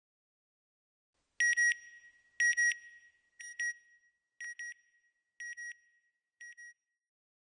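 Electronic beeps on one high tone, in quick pairs: six pairs, about one a second, each quieter than the last, so the beeping fades away.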